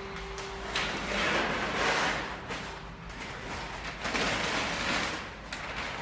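Masking tape being peeled off a car headlight from still-wet rubber spray paint: two long peels, about a second in and again around four seconds in.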